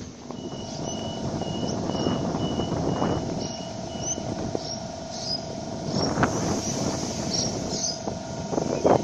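Sydney Trains Waratah A-set electric train standing at the platform with its electrical equipment giving a steady hum and whine. During the first four seconds there is a run of short high beeps, about two a second, the door-closing warning before departure. A couple of brief sharper noises follow as the train gets ready to move off.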